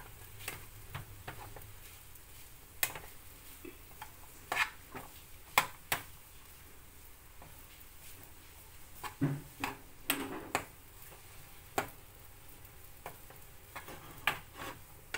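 Metal spatula knocking and scraping against a frying pan at irregular intervals as cooked rice is broken up and stir-fried, with a faint frying sizzle underneath.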